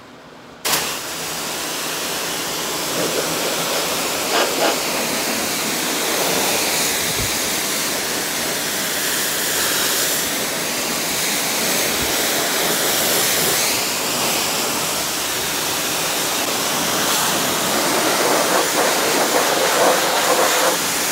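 Pressure washer spraying a high-pressure water jet onto a mud-caked skid-steer loader: a loud, steady hiss of spray that starts abruptly under a second in and runs on unbroken.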